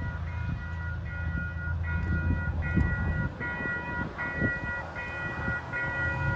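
Railroad grade-crossing warning bell ringing a repeated ding, about once every 0.8 s, as the crossing gates rise once the train has cleared. A low rumble runs underneath.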